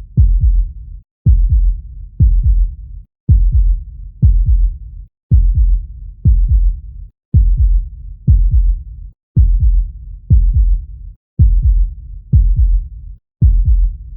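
A heartbeat sound of deep, low thumps about a second apart. They fall into pairs repeating every two seconds, each pair followed by a brief silence, in a steady lub-dub rhythm.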